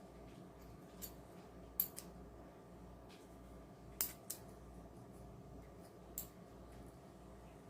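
A few light, sharp metallic clicks and clinks of small pieces of delaminated Damascus steel being handled, over a faint steady hum.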